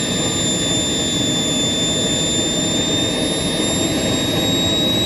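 King Tech K-80 micro turbojet engine running at speed: a loud, steady jet roar with a high turbine whine on top, the whine's pitch creeping slightly upward near the end.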